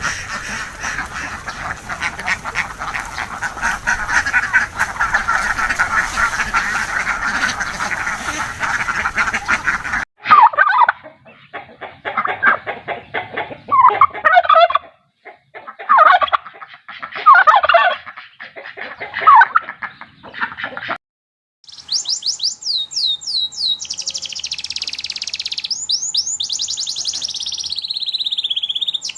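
Farm birds calling in three separate clips: a dense, continuous flock chorus for about the first ten seconds, then a series of separate loud calls in short bouts, then rapid high-pitched chirping in quick runs from about three-quarters of the way through.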